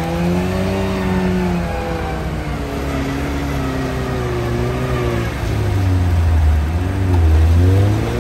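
Lada Niva's engine revving up and down under load as the vehicle works through deep, muddy forest ruts. The pitch rises and falls several times, loudest in a low surge near the end.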